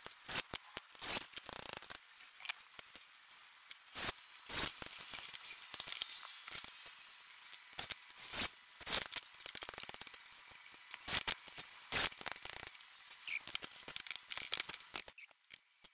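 Hands working on a wooden frame: irregular clicks, taps and light knocks from pine boards and metal corner clamps being handled and set down.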